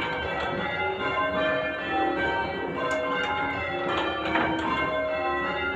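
Church bells being change-rung: a tower's bells struck one after another in a continuous run, their tones overlapping and ringing on.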